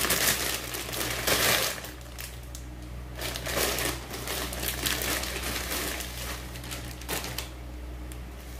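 Plastic packaging crinkling and rustling in irregular bursts as a new pair of boxing gloves is pulled out of it, dying down in the last second or so. A low steady hum runs underneath.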